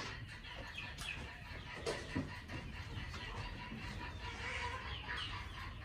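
Caged young red junglefowl cockerels clucking and giving short calls, with a few sharp taps about one and two seconds in.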